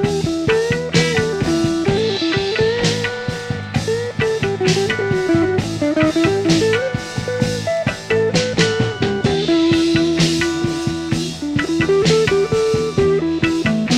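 Instrumental rock music: a guitar plays a melody with pitch bends over chords, bass and a drum kit.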